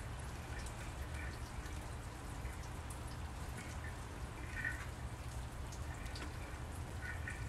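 Light rain: scattered drips ticking over a steady low hum, with short faint chirps now and then.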